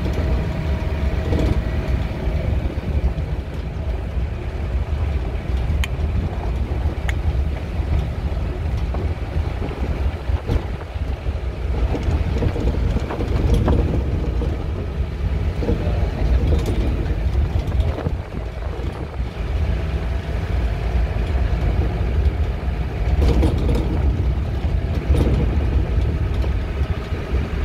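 Steady low rumble of a vehicle's engine and running gear on the move, with a few faint clicks and rattles.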